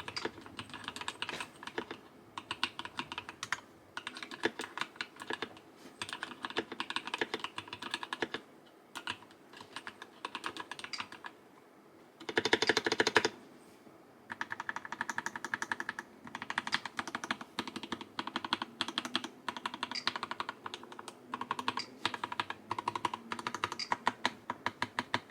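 A newly built custom mechanical keyboard with lubed linear switches being typed on in quick runs of keystrokes, with short pauses between the runs. About halfway through comes a louder, denser flurry of keystrokes.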